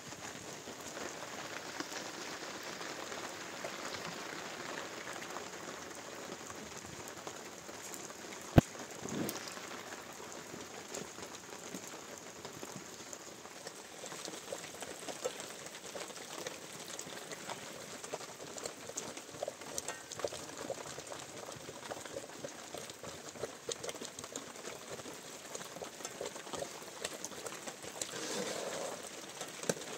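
Steady rain falling, with many small drop ticks close by and one sharp click about eight and a half seconds in.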